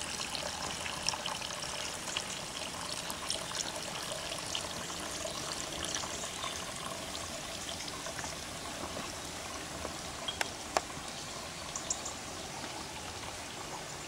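Freshly distilled tsipouro trickling in a thin, steady stream from the still's metal outlet pipe into a plastic bucket. A few light clicks come about ten seconds in.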